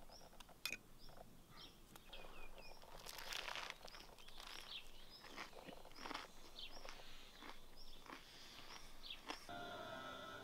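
Small birds chirping repeatedly in short calls, with soft crunching and chewing as a bread-roll kebab sandwich is bitten and eaten. Music comes in near the end.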